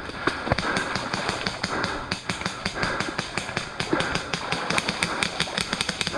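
Airsoft guns firing in rapid strings of sharp shots, several a second, with the pace picking up after about two seconds.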